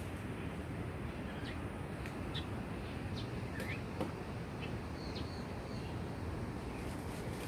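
Steady wind rumble on the microphone, with a few short, high bird chirps scattered through it.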